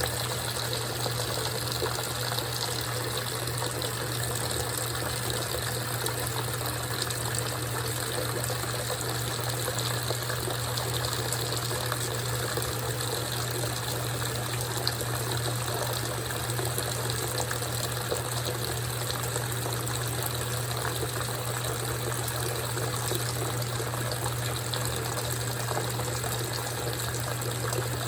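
GE top-load washing machine running with its lid open, water swishing and splashing in the tub over a steady low hum.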